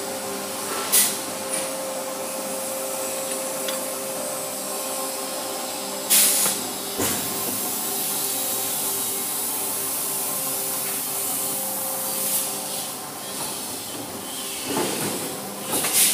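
Chain-making factory machinery running: a steady hum with a constant hiss, broken by short loud hisses about a second in, at about six seconds, and again near the end.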